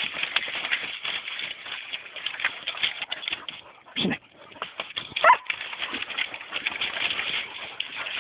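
Springer spaniel pushing through a pile of dry cut branches, twigs crackling and snapping throughout, with a short whine about four seconds in and another about a second later.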